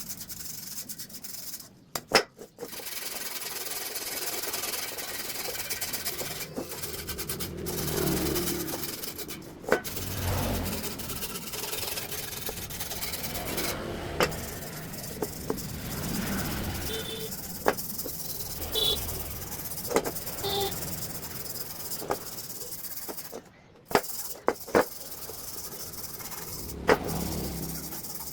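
Abrasive rubbing, like sanding or scraping a surface by hand: a steady hiss broken by occasional sharp clicks and light knocks.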